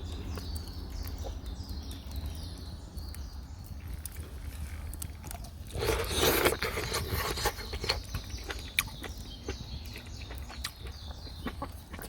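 A person slurping ramen noodles: one loud slurp about six seconds in, lasting a second or so, among scattered small clicks.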